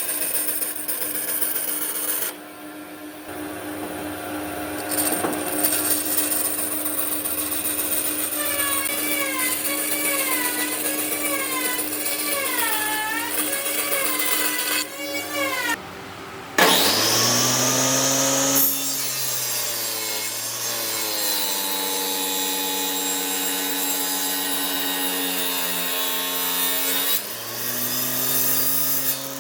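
Power tools working a large piece of wood, in several cut-together stretches: a steady motor hum with scraping and sawing on the wood, then, just past halfway, a louder motor whine that sags in pitch and recovers as the tool bites into the wood under load.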